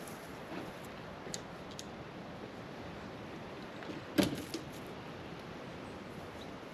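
A golf club strikes the ball about four seconds in: one sharp crack, the loudest sound, followed by a couple of smaller clicks. Steady wind rumbles on the microphone throughout.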